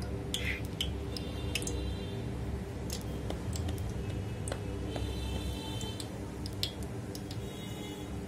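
Cooking oil heating in a steel pot, crackling with scattered sharp pops over a steady low hum.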